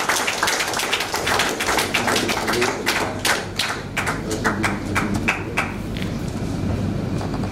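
Audience applauding, a dense patter of many hands clapping that thins out over the last second or two.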